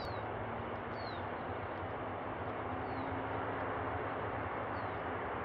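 Boeing 747-400 jet engines heard from a distance as the airliner lands and rolls out, a steady even rushing noise with a low hum beneath. A few short, high, falling chirps sound over it every second or two.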